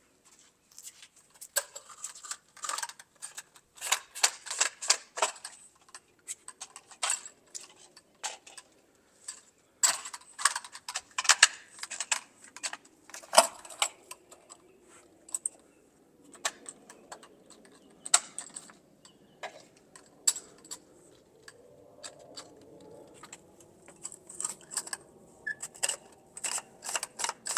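Hard plastic clicking and clattering in irregular runs, from pool pop-up cleaning heads being twisted out and handled.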